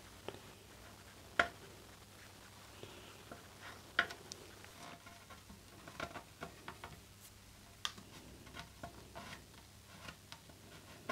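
Small metal blade tapping and scraping on a plastic radio case as acetone-softened plastic is pressed into a hole: faint scattered clicks and ticks, a few sharper ones, busier in the second half.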